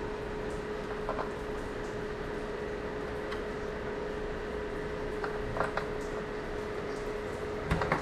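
Steady hiss with a constant mid-pitched hum, and a few faint clicks and rustles of fingers working the wires and tape on a taillight's capacitor, with a sharper click near the end.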